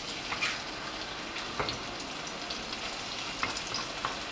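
Ground spice paste of garlic, shallots, nutmeg and pepper sizzling as it fries in oil in a frying pan, with scattered crackles and pops.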